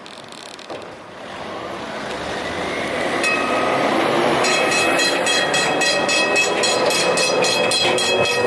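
Hansa GT4 articulated tram approaching and running past, growing louder over the first few seconds, with a whine from the running gear that rises slightly in pitch. From about halfway it is joined by rapid, regular clicks, about four a second.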